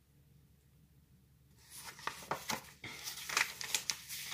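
Quiet for about a second and a half, then a paperback book being handled: its pages and cover rustle and crackle in a quick run of small clicks as it is turned around.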